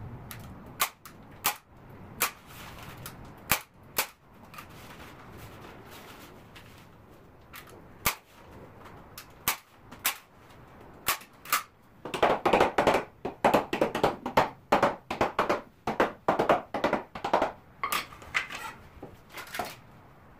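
Hand staple gun firing staples through flashing tape into a wooden window frame: sharp snaps, spaced a second or so apart at first, then a fast run of many shots in a row from a little past halfway.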